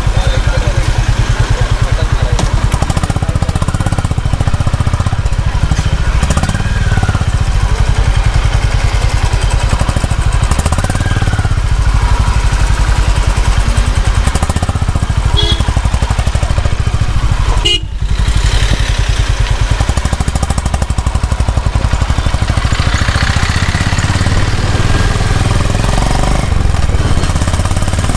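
Honda H'ness CB350's single-cylinder engine running through a modified silencer, a steady, rapid exhaust thump with wind buffeting the microphone.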